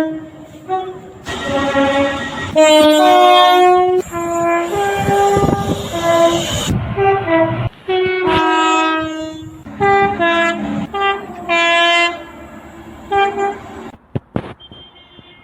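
Train horns sounding in a series of separate blasts, short and long notes at changing pitches, some alternating between two tones. About four to seven seconds in, the blasts sound over the noise of a passing train.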